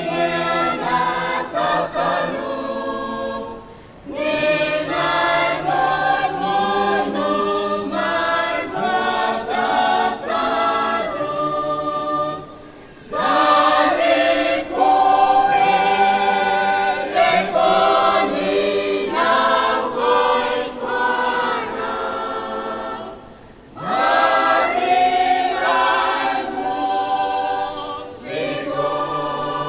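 Mixed choir of men's and women's voices singing a Roviana-language hymn a cappella in harmony. The hymn moves in sung phrases with brief pauses between them, about 4, 13 and 24 seconds in.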